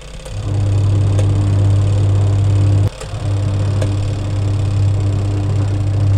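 Ramtons single-tub washing machine's wash motor humming steadily as it agitates the load in the last seconds of the wash timer. It stops for a moment about three seconds in, which is typical of the pulsator reversing direction, then starts again.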